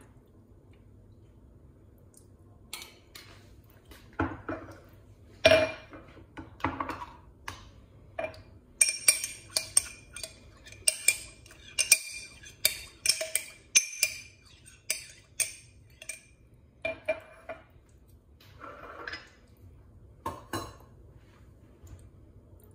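Irregular clinks and knocks of kitchenware, with a run of ringing clinks at about two a second in the middle.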